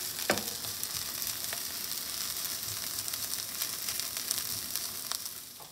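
Kale and green onions sizzling steadily in oil in a nonstick sauté pan, with a few light clicks of a wooden spoon stirring against the pan. The sizzle fades away near the end.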